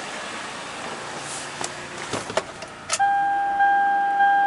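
A few clicks and knocks from the Toyota Highlander's driver's door and cab. About three seconds in, a dashboard warning chime starts: a steady tone that re-sounds a little more often than twice a second.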